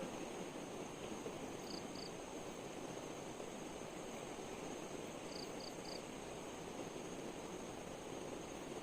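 Steady rushing of flowing river water with a constant high insect drone over it. Short high chirps come in a pair about two seconds in and in a quick group of three just after five seconds.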